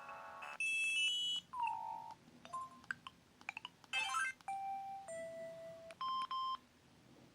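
Samsung C300 mobile phone playing its preloaded ringtones through its small speaker. A polyphonic melody ends about half a second in, followed by a string of short electronic beeps and chirps, a falling sweep, a brief hiss-like burst and two held tones, ending in a double beep.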